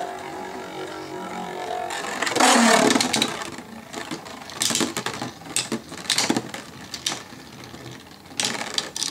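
A Beyblade spinning top is ripped from its launcher by the ripcord, with a whirring rush about two seconds in. Then spinning tops clack and knock against each other and the plastic stadium in sharp, irregular hits.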